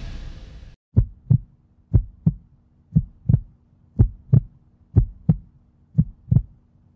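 Heartbeat sound effect: pairs of low thumps, lub-dub, about once a second, coming in after the fading tail of a whoosh-and-bang hit in the first second.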